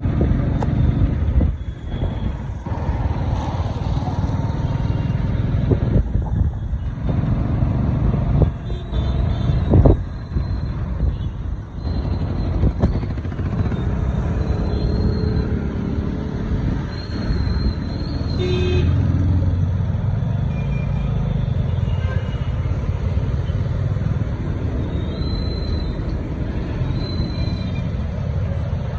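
Wind rumble on the microphone and traffic noise from a two-wheeler riding through city traffic, with a few sharp knocks and occasional short horn toots from the surrounding vehicles.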